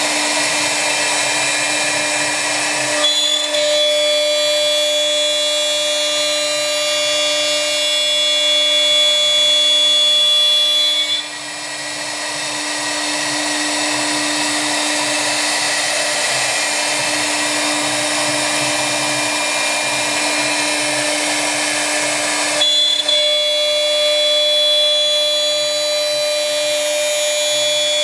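CNC router spindle milling a wooden baluster held on a servo-driven rotary axis: a steady whine with cutting noise, its tone changing about three seconds in and again near twenty-three seconds, with a brief drop in loudness about eleven seconds in.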